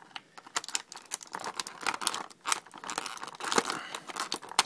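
Clear plastic blister packaging crinkling and crackling as it is handled, with many sharp clicks and snips as scissors cut away the twist ties holding the figure in its tray.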